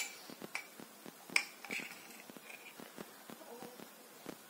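A few sharp, faint clicks or taps. The loudest comes right at the start and another about a second and a half in, followed by a short faint high tone.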